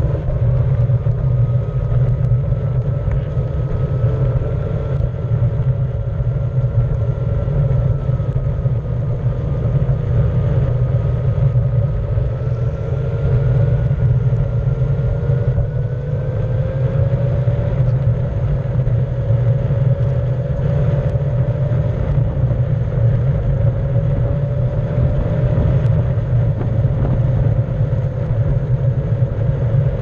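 Onewheel electric skateboard riding over asphalt: its hub motor whines, and the pitch drifts slowly up and down with speed. Under the whine is a steady low rumble of the tyre rolling on rough pavement.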